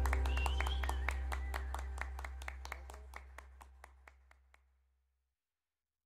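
The end of a song fading out: a held low bass note and a steady run of sharp percussive ticks, about four a second, die away together over four to five seconds.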